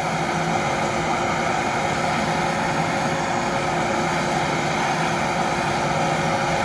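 Handheld butane cartridge torch burning with a steady hiss, its flame heating a copper gasket to anneal and soften it.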